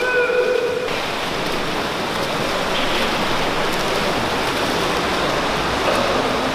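Steady rushing splash of swimmers' strokes churning the water in a racing pool, with a brief held high-pitched note in the first second.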